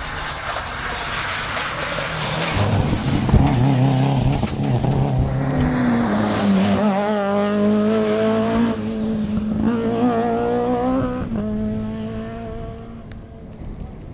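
Rally car at full throttle passing close by. The engine note climbs and drops back twice as it shifts up through the gears, then fades away as the car pulls off down the stage.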